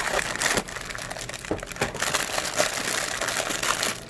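Packaging of a small blind box crinkling and crackling as it is torn open and unwrapped by hand, with many quick clicks and rustles.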